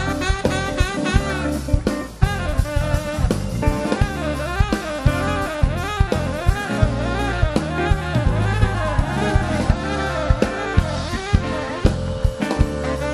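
Live jazz band playing an instrumental: drum kit, electric bass, guitar and keyboards, with a bending melody line on top. Long held notes, most likely the saxophone, come in near the end.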